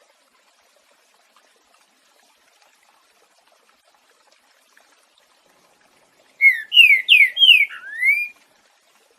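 Green-winged saltator (trinca-ferro) singing one short phrase of its 'boiadeiro' song type, about two-thirds of the way in: about five loud clear whistled notes, mostly sliding downward, the last one rising, lasting about two seconds over a faint background.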